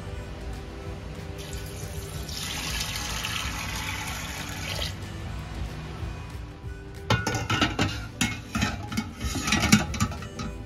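Water poured into a stainless steel pressure cooker pot of red beans, a steady splashing for about three seconds. It is followed by a run of metal clanks and clicks as the pressure cooker lid is set on and locked. Background music plays underneath.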